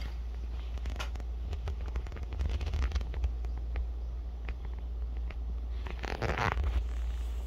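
Handling noise from a phone held close: scattered light clicks and rubbing, with a brief denser rustle about six seconds in, over a steady low hum.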